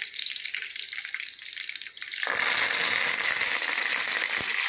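Chicken drumsticks shallow-frying in hot oil, sizzling softly, then a bit past two seconds in the sizzle jumps suddenly to a much louder, denser hiss as fresh green leaves hit the oil. A few sharp pops of spitting oil come near the end.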